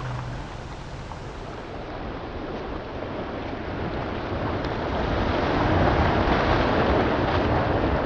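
Sea surf washing in and breaking against rocks, a steady rushing of water that swells louder about five seconds in.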